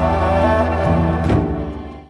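Background music of sustained notes over a steady low drone, fading out near the end.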